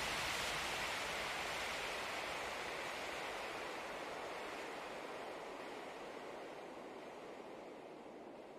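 A steady, even hiss of noise that slowly and smoothly fades out.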